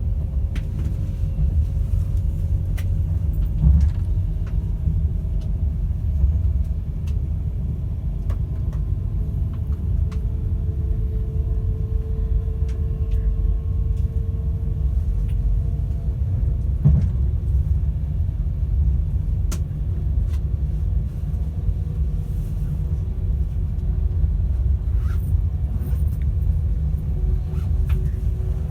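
Class 390 Pendolino electric train running, heard from inside the carriage above its traction motors: a steady low rumble with faint motor tones that drift slowly up and down in pitch, and occasional light clicks.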